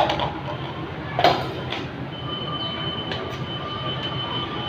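Steady whirring of an electric stand fan, with sharp knocks from the fan being handled near the start and about a second in. A thin steady high whine comes in about two seconds in.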